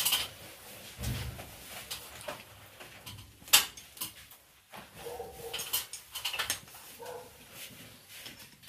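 Scattered clicks and taps of hand tools and metal fittings being worked at an air-conditioner's copper pipe joint, with one sharp click about three and a half seconds in.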